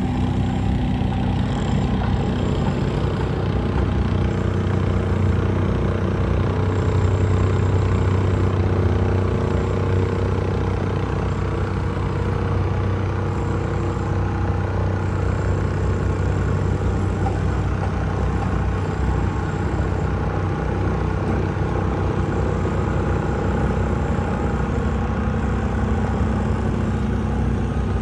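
Petrol plate compactor running steadily, a low engine drone with a constant vibrating hum that swells a little partway through.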